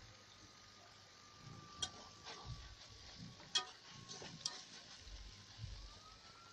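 A slotted metal spoon stirs chicken with sliced peppers and onions in a large metal pan, with several sharp clinks of the spoon against the pan over a faint sizzle of frying.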